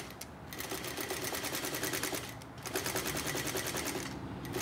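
Table-mounted straight-stitch sewing machine running fast, stitching a quarter-inch seam through silk: the closing pass of a French seam. The rapid, even stitching pauses briefly three times, just after the start, about halfway through and near the end.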